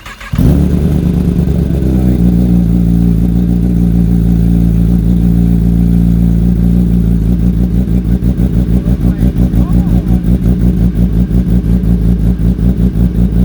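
A 2020 Kawasaki ZX10R's inline-four engine, breathing through an Austin Racing GP1R exhaust with the catalytic converter removed, starts on its first startup and catches within half a second. It runs at a fast idle that eases down about two seconds in, then holds a loud, steady idle with a rhythmic pulse in the second half.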